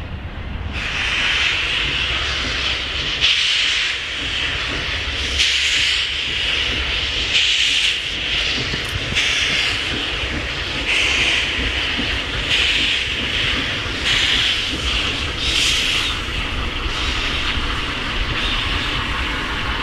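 South African Railways Class 26 steam locomotive moving off slowly with its cylinder drain cocks open. A loud steam hiss starts sharply about a second in and then surges in a steady rhythm, roughly once every one and a half to two seconds, over a low rumble.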